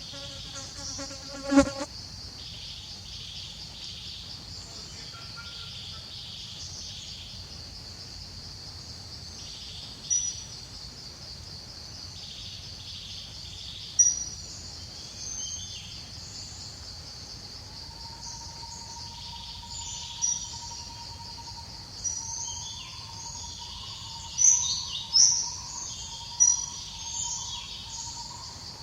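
Steady, pulsing drone of insects, with short bird chirps scattered through it. About a second and a half in there is a brief buzzy call ending in a sharp click, and a few more short, sharp sounds follow later on.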